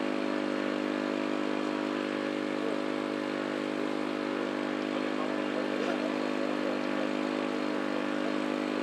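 A combustion engine running steadily at an even idle, a constant low drone.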